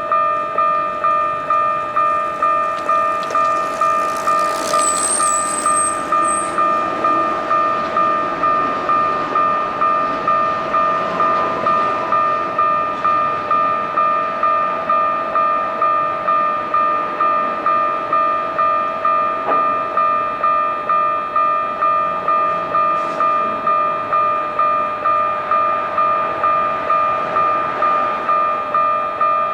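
Japanese level-crossing warning bell ringing its repeating "kan-kan" in an even, steady rhythm while a train runs over the crossing. A brief high squeal comes about five seconds in.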